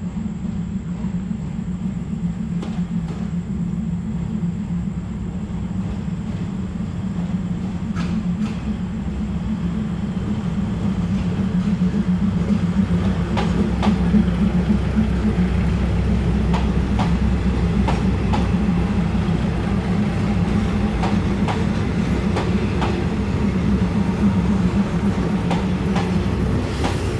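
A train running by: a steady low drone that grows louder through the first half, with a run of sharp wheel clicks over rail joints in the second half.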